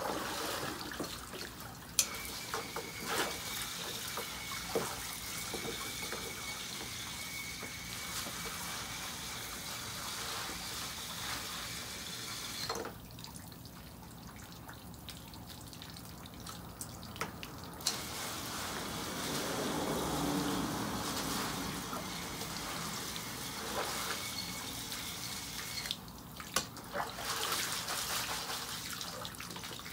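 Garden hose pistol-grip spray nozzle spraying water over bay leaves in a plastic crate above a tub of water, with a thin steady whistle. The spray stops for a few seconds about halfway, then starts again. Near the end, water pours out of the lifted crate into the tub.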